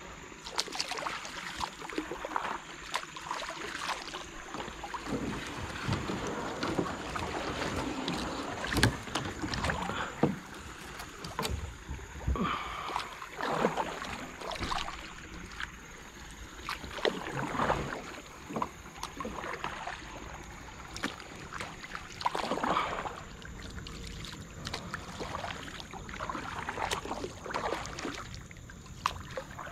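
Kayak paddle strokes: the blades swish and splash through the water in an irregular rhythm, a stroke every second or two, with a few sharp knocks along the way.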